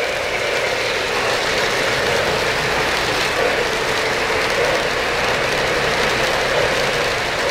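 Freight cars of a 3-rail O-scale model train rolling past on the track: a steady clatter of wheels on the rails.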